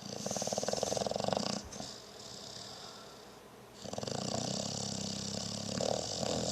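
Fat dog snoring while awake: a fast fluttering snore on each breath. A loud snoring breath at the start, a quieter breath after it, then a longer loud one from about four seconds in.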